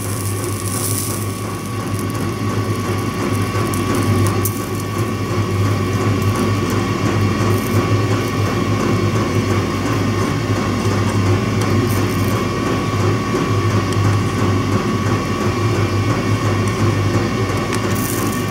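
A steady mechanical hum with a strong low drone and a faint thin whine above it, running evenly without a break.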